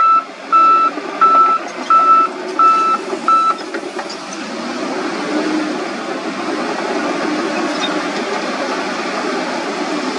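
Crawler bulldozer's reverse alarm beeping about every two-thirds of a second over the steady running of its diesel engine and tracks; the beeping stops about three and a half seconds in and the engine and tracks run on alone.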